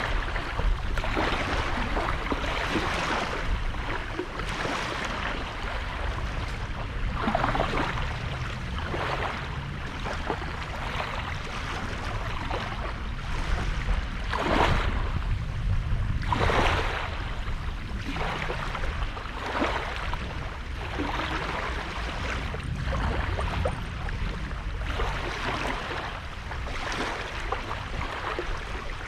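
Small sea waves washing onto the shore, one wash every second or two, over a steady low rumble.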